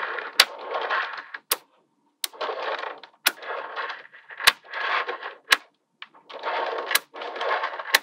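Small neodymium magnetic balls being laid in a chain along the edge of a panel of magnetic balls: sharp clicks as balls snap into place, about seven at uneven spacing, with short spells of rattling and rolling between them.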